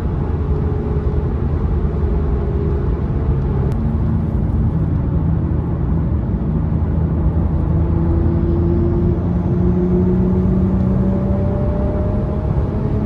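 Infiniti Q50 driving, its engine running under a steady road rumble, with the engine pitch slowly rising in the second half as it gathers speed.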